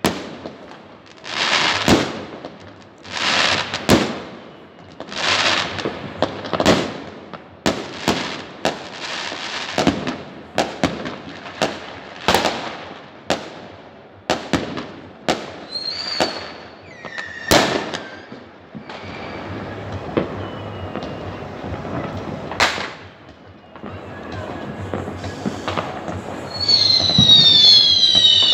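Fireworks going off: a long run of bangs from bursting shells, each trailed by crackling. Near the end several high whistles fall in pitch together.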